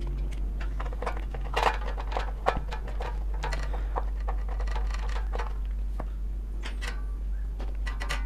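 Irregular light clicks and taps of a screwdriver turning and seating the blade screws of a ceiling fan, over a steady low hum.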